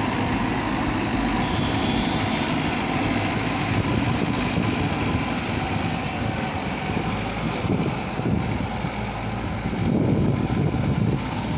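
JCB backhoe loader's diesel engine running steadily, swelling briefly in loudness about ten seconds in.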